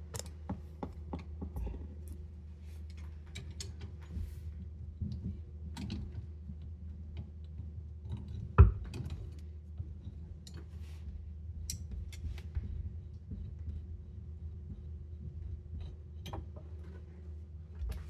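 Channel-lock pliers and a water supply line's nut being worked loose under a kitchen sink: scattered small clicks and taps, with one sharp knock about halfway through, over a steady low hum.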